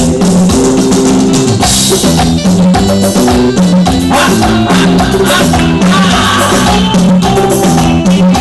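Upbeat dance music with a drum kit and a repeating bass line, played loud.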